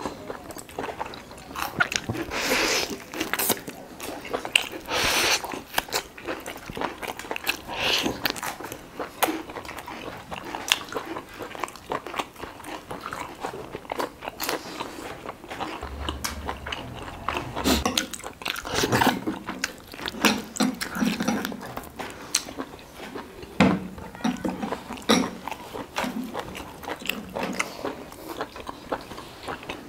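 Close-up eating sounds: irregular crunchy bites and chewing of roasted duck meat and bone and of raw cucumber slices, with many sharp crunches.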